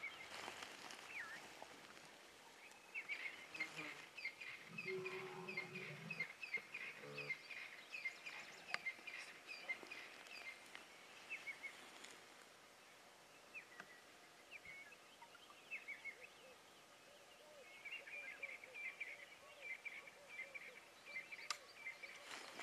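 Faint birds calling in the bush: rapid runs of short, high chirps, one spell lasting several seconds from a few seconds in and another near the end.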